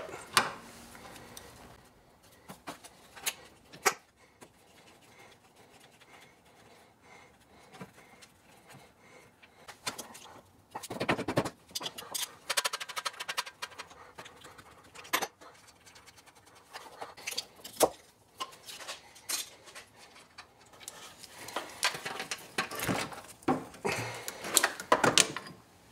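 An adjustable wrench working on the mounting bolts of a car's air-conditioning compressor: scattered metallic clicks and clinks, in irregular bursts, with handling knocks as the compressor is worked loose and held near the end.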